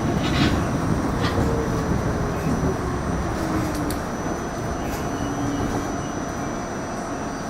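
R68 subway car rumbling and slowing on the rails, with the motor whine falling slowly in pitch as the train brakes into the station.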